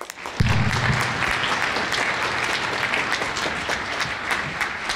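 Audience applauding: a dense clatter of many hands clapping that comes in strongly about half a second in and holds steady.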